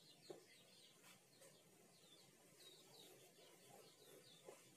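Near silence, with faint short high chirps every so often and a couple of light taps.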